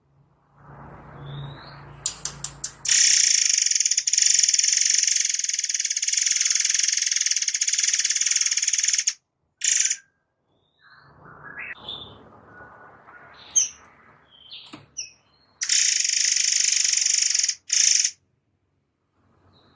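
A caged murai air mancur songbird giving long, dense, harsh trills. The first lasts about six seconds, and a second, shorter one comes near the end. Short chirps fall between them, over a low rumbling background.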